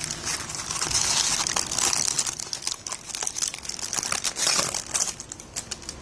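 Kitchen parchment paper and masking tape being peeled and unwrapped from a carbon bike frame tube after the epoxy repair has cured, crinkling with many small crackles.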